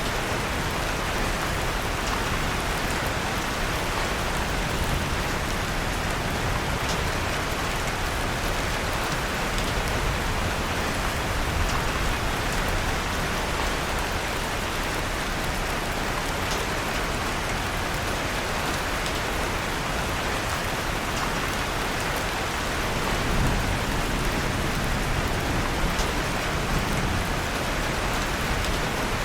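Steady rain falling, with faint scattered pops of a wood fire crackling in a fireplace.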